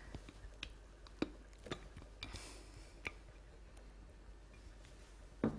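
A few light, scattered clicks and taps of a kitchen utensil against a mixing bowl, about half a dozen over three seconds.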